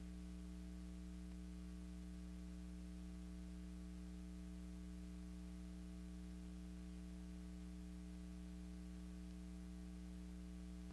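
Steady low mains hum with faint hiss, unchanging throughout: the background noise of a silent film that has no soundtrack of its own.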